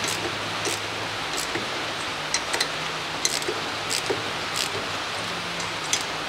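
Ratchet wrench clicking in short bursts, about once a second, as M8 bolts are screwed into the brake disc's threaded holes to force the disc off the hub. A steady hiss with a low hum sits underneath.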